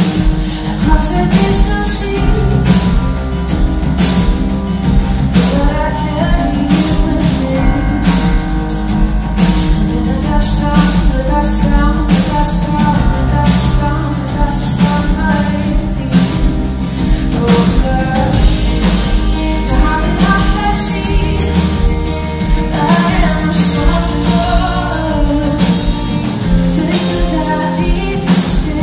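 Live band playing a pop-rock song: a woman singing over acoustic guitar, electric guitar and drums. It is heard from the crowd through a phone's microphone.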